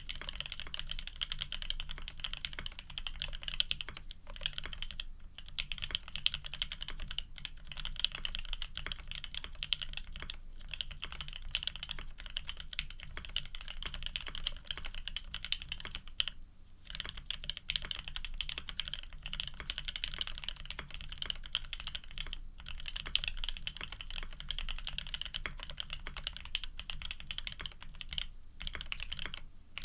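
Steady, fast typing on an F1-8K custom mechanical keyboard fitted with lubed OP Black switches, PBT keycaps and an FR4 plate: a dense run of key clacks with a few short breaks and one longer pause about halfway through.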